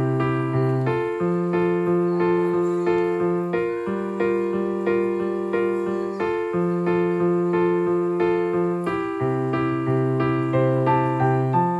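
Background piano music, electric-piano in tone: a steady pulse of repeated chords over a bass note that changes about every two and a half seconds.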